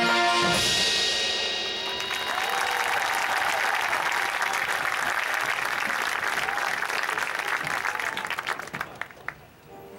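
A marching band's held chord cuts off about half a second in, and the crowd in the stands applauds for several seconds, dying away near the end.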